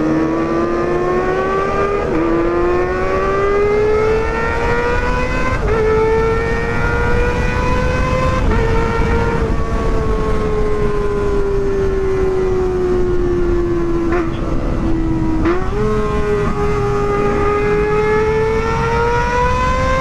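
Kawasaki ZX-25RR's 250 cc inline-four engine, through an aftermarket Pro Liner exhaust, revving high under way. It climbs through the gears with upshifts about two and six seconds in, then eases off with the pitch slowly falling. About fifteen seconds in it downshifts with a jump in revs and climbs again. Wind rushes under the engine sound throughout.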